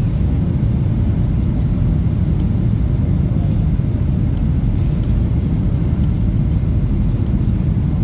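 Steady low rumble of engine and airflow noise heard inside the cabin of a Ryanair Boeing 737 airliner in flight.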